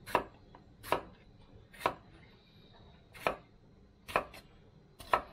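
Chef's knife slicing a yellow bell pepper into strips, each cut ending in a sharp knock on a plastic-wrapped wooden cutting board: about seven knocks at an uneven pace of roughly one a second, two of them close together a little past four seconds.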